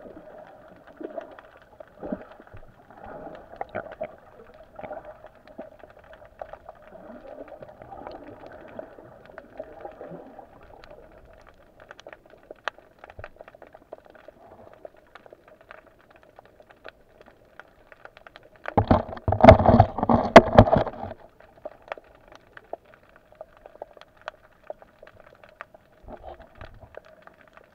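Muffled underwater sound with a faint steady hum and light crackling. About two-thirds of the way through, a loud burst of knocking and rumbling lasts about two seconds.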